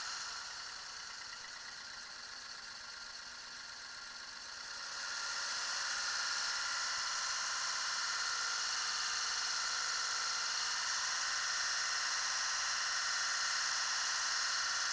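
Car engine running low on oil, with a steady high-pitched whir and rattle that grows louder about five seconds in; the mechanics put the rattle down to the hydraulic lifters as the oil runs out.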